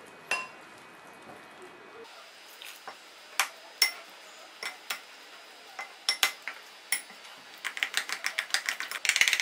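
Metal spoon stirring a thick flour batter in a glass bowl, clinking against the glass. The clinks come one at a time at first, then turn into quick, steady strokes near the end.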